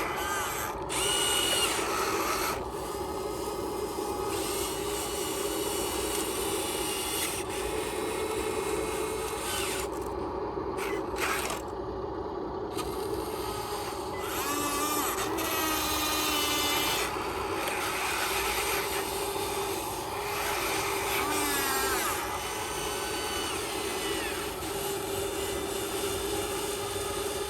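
Small electric motors and gearboxes of radio-controlled construction models whining, the pitch rising and falling again and again as the motors speed up, slow and stop.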